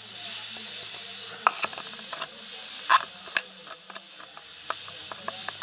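Thick detergent-and-cornstarch slime being worked with a spoon: irregular sharp clicks and sticky pops, a few louder than the rest, over a steady high hiss.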